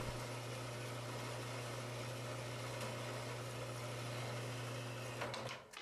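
Metal-cutting bandsaw running, its blade slowly cutting through a 1.5-inch diameter steel drill rod: a steady motor hum under an even hiss from the cut, fading out near the end.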